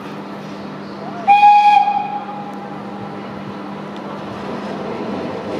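Škoda-built class 350 electric locomotive sounding one short, high horn blast a little over a second in, a single clear note lasting about half a second, over a steady low hum and the rail noise of the approaching locomotive, which grows toward the end.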